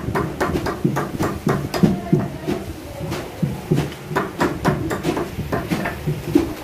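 Fish being cut up on curved bonti blades: an irregular run of sharp knocks and chops, about two or three a second, with duller thuds beneath.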